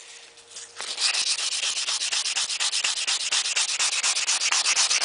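150-grit sandpaper rubbed by hand along stainless steel car trim in rapid, even strokes, a dry scratchy sanding sound. It starts about a second in after a brief pause. This is the stage where the file marks left from a dent repair are sanded out of the stainless.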